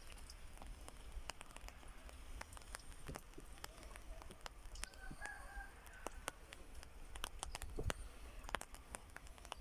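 Chickens clucking faintly, with short calls about five seconds in, over many scattered sharp ticks and a steady low rumble.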